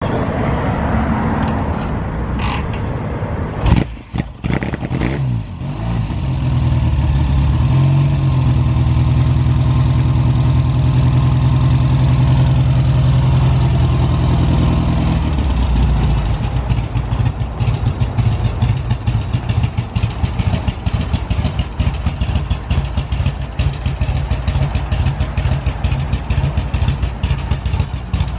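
1967 Triumph TR6C Trophy's 650 cc parallel-twin engine running on a cold start: a sharp crack and a brief stumble about four seconds in, then a steady fast idle. About fifteen seconds in the idle drops to a slower, uneven, pulsing beat.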